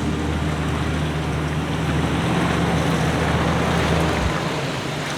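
First-generation Toyota Sequoia's V8 running with a low steady hum under a steady rushing noise; the deepest part of the hum drops away about four seconds in.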